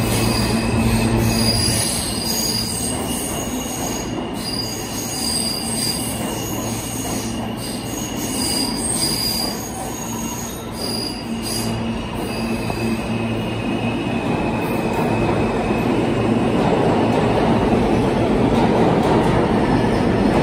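R160A New York City subway train moving out along the platform and away, its cars rumbling on the track with a steady low hum. High steady wheel squeal comes and goes over the rumble.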